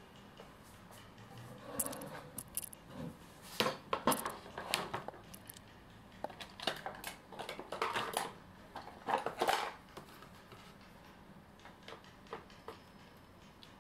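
Clinking and scraping of a metal tool against the aluminium can of an old multi-section electrolytic capacitor, set in a plastic tray, as the old filling is dug out. The clinks come in scattered clusters and fade to a few faint ticks near the end.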